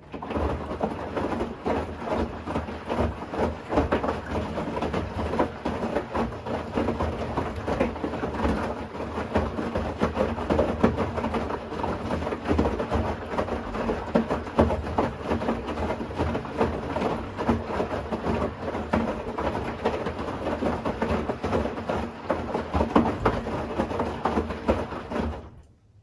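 Bosch Series 6 i-dos front-loading washing machine with its drum turning during the wash: wet laundry and water sloshing and tumbling, with many small knocks. It starts abruptly and stops suddenly near the end as the drum pauses.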